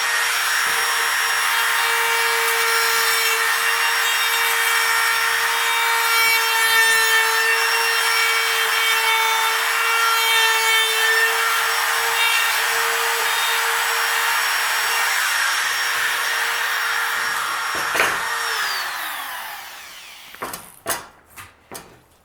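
Handheld router cutting a door-hinge mortise in wood, its bit guided around a template, running steadily with a high hum under the cutting noise. About eighteen seconds in it is switched off and winds down with a falling whine, followed by a few light knocks.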